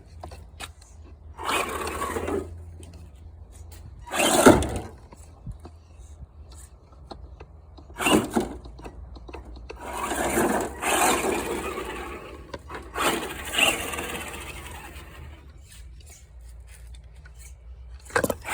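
Electric RC car run in several short bursts, whirring and scraping, the loudest burst about four seconds in, over a low steady hum.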